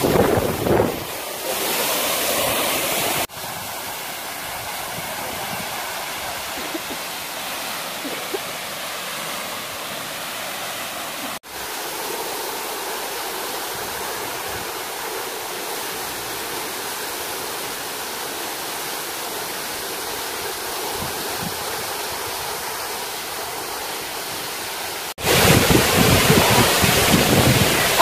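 Waterfall: a steady rush of falling water splashing into its pool. Wind buffets the microphone in the first second and again over the last few seconds. The sound changes level abruptly about 3, 11 and 25 seconds in.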